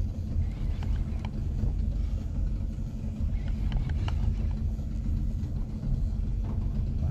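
Small fishing boat's engine idling with a steady low rumble, with a few faint clicks about one and four seconds in.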